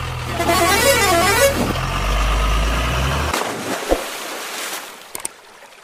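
Dubbed-in truck engine sound running steadily with a warbling horn tune over it in the first second or so. The engine sound cuts off abruptly just after three seconds, leaving a fading hiss.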